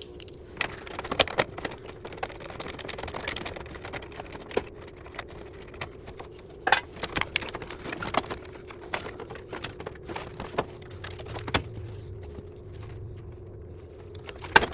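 Irregular clicks, clinks and knocks of an electric cooling fan and its plastic shroud being worked loose and lifted out of a Jeep XJ engine bay.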